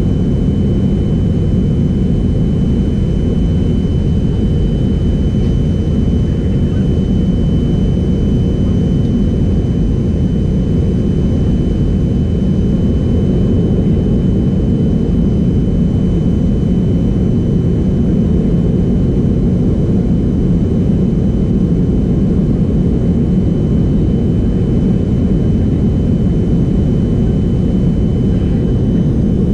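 Steady in-flight cabin noise of a Boeing 737-200: a low rumble from its Pratt & Whitney JT8D turbofans and the airflow, with a faint steady high whine.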